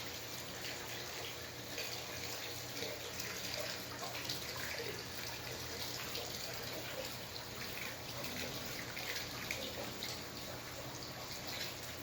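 Steady running water, a continuous light splashing trickle.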